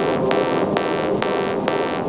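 Background electronic music with a steady beat of about two sharp percussion hits a second over sustained synthesizer tones.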